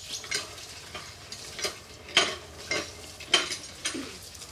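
Wood embers and ash crackling and popping around a whole chital fish roasting in them, a sharp crack about every half second, with two louder pops past the middle.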